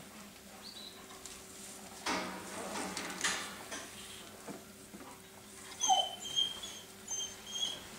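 Four-week-old Leonberger puppies whimpering, with a short falling cry and a run of thin, high, broken whines in the second half. There is a rustle about two seconds in.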